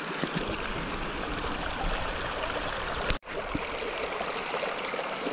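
Stream water flowing steadily through and around a metal sluice box set in the current, washing over its rubber riffle mat. The sound cuts out for an instant about three seconds in.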